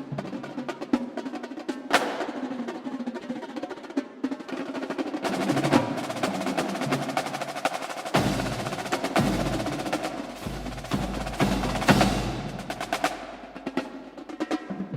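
Percussion music: a dense run of quick, sharp drum strikes with a few louder hits. A deep bass joins about halfway through.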